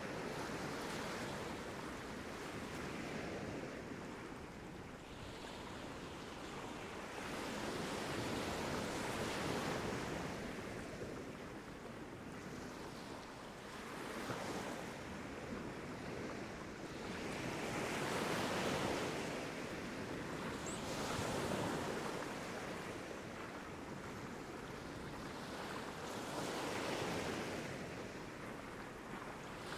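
Sea waves washing onto a beach, a steady rush that swells and falls every few seconds as each wave comes in.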